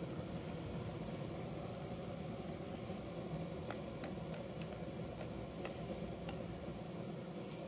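Faint steady outdoor background noise with a thin high hum, and a few soft clicks scattered through the second half.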